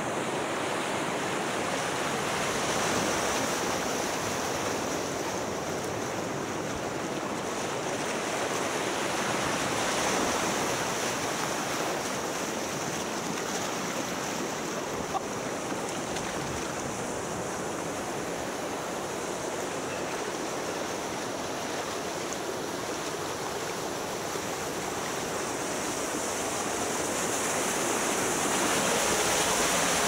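Rushing, churning water of a wild-river water slide flowing around the rider, a steady wash that swells a little near the end as the channel enters a covered tunnel.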